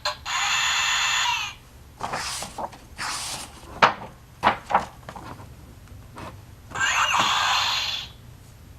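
Electronic sound effects from a children's Play-A-Sound book's small speaker: a noisy effect lasting about a second and a half, softer swishing, and another effect near the end. Between them come a few sharp clicks of buttons being pressed.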